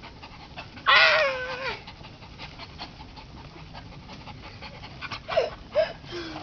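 Blue heeler panting as it tugs a rope to pull a tire swing, with one loud, high, slightly falling cry about a second in and two short high calls near the end.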